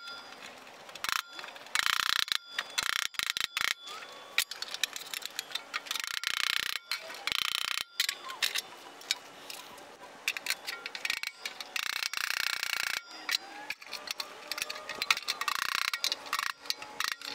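Body hammer striking the flange of a metal door skin against a hand-held dolly to fold it over: runs of rapid metallic taps with short pauses between them, some lightly ringing.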